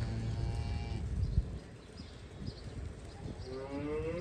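Jersey heifers mooing: one call that ends about a second in, and a second call that rises in pitch near the end.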